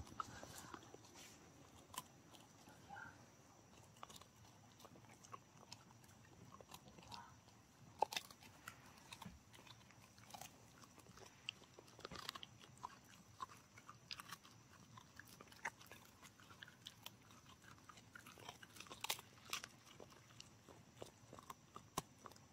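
A dog chewing a hard strip of dried beef lung jerky: irregular sharp crunches and clicks of teeth on the treat, a louder crunch about eight seconds in and a cluster near the end.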